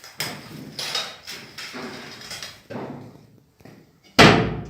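Knocking and scraping from the metal doors of a cassette fireplace being worked while its first fire is lit, ending with a loud clunk about four seconds in.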